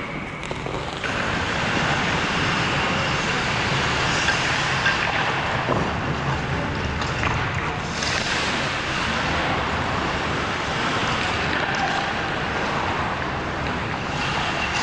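Steady rushing noise of a hockey practice on an ice rink, with skate blades scraping the ice.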